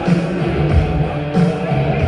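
Loud rock-style music with guitar and a steady beat.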